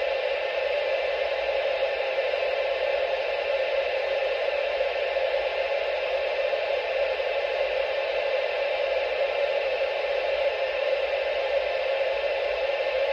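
Steady hiss of television static from a set receiving no broadcast signal.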